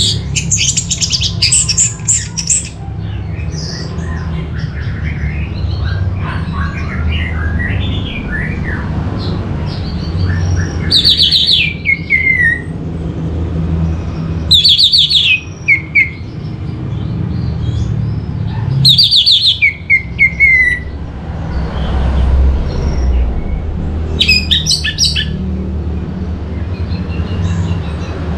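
Orange-headed thrush (Geokichla citrina) singing: loud bursts of rapid, high whistled notes a few seconds apart, several ending in a falling slur, with softer varied twittering between them. A steady low hum runs underneath.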